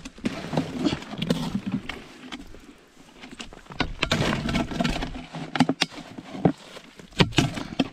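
Handling noise at an ice-fishing hole: a plastic bottle float lifted out of the water and handled, with irregular knocks, clatter and water splashing.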